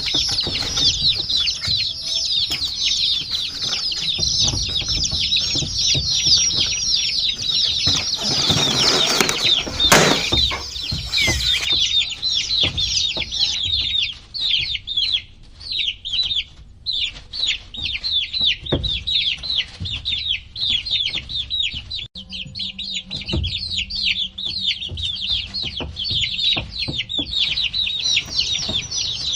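A crowd of baby chicks peeping continuously, many shrill falling calls overlapping. About eight to twelve seconds in, a loud rushing noise with a sharp knock rises over the peeping.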